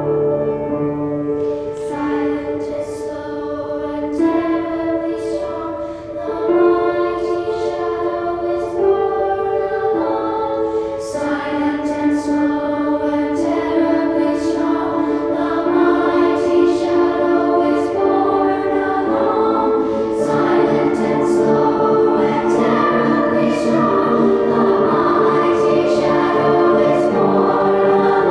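Children's choir singing a choral piece, holding sustained notes in several parts with crisp "s" consonants.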